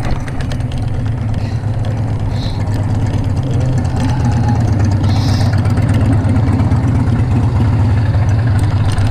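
Steady low rumble of road traffic and wind noise, heard from a bicycle riding along a street, growing a little louder about five seconds in.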